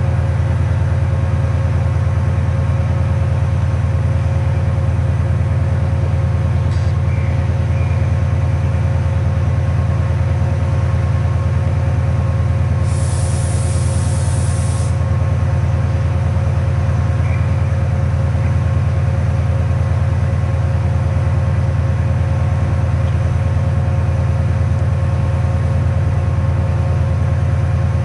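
Class 68 diesel-electric locomotive idling at a standstill, its Caterpillar V16 engine giving a steady low drone with a constant hum on top. About halfway through comes a hiss of released air lasting about two seconds.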